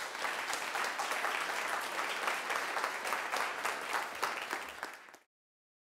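Audience applauding, many hands clapping together, then cut off suddenly about five seconds in.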